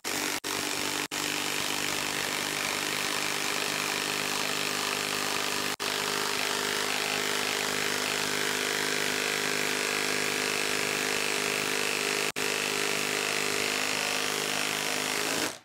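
Milwaukee 2962-20 half-inch impact wrench hammering continuously as it drives an 8-inch by 5/8-inch lag screw into a wooden log round, with four very short breaks in the run. It stops suddenly near the end once the lag is driven in.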